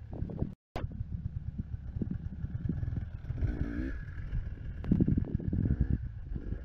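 KTM 300 EXC TPI two-stroke enduro bike running over rough ground, with a rev about three and a half seconds in as it hops a log. The sound drops out briefly about half a second in.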